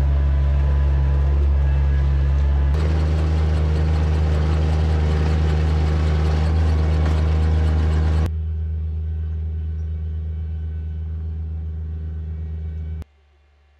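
Ride-on rice transplanter's engine running steadily at close range while it plants seedlings in a flooded paddy. The hum changes pitch and level abruptly twice, is softer from about eight seconds in, and cuts off shortly before the end.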